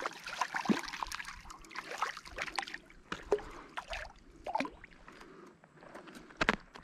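A hooked bass splashing and thrashing at the water's surface as it is reeled in on light line, with irregular splashes and water sloshing. The splashing is busiest in the first three seconds and sparser after, with a sharp knock near the end.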